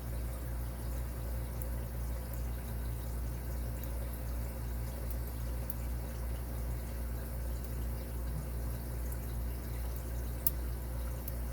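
Faint, scattered ticks of a lock pick and tension tool working the pin stack of a padlock, one slightly sharper click near the end, over a steady low hum.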